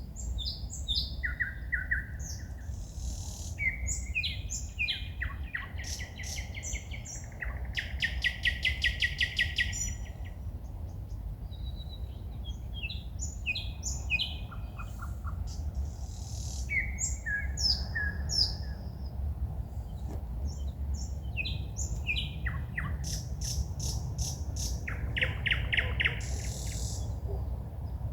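Songbirds singing at night in varied phrases of whistles, chirps and fast rattling trills, with short pauses between phrases, over a steady low rumble.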